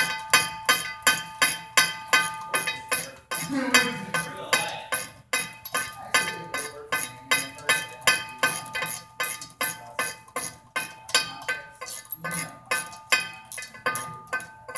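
Ratchet wrench clicking in a steady rhythm, about four clicks a second, as it backs out the U-joint bolts at the rear differential yoke of a Chevrolet S10's driveshaft.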